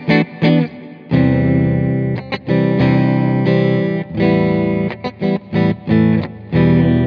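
Fender American Standard Stratocaster (HSS) electric guitar played with distortion: a few short, choppy chord stabs, then a chord held from about a second in, followed by more chords broken by brief stops.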